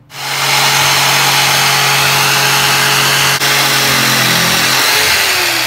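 Corded jigsaw cutting through a shiplap board: the motor starts suddenly and runs steadily with the blade buzzing through the board, then winds down with a falling pitch near the end.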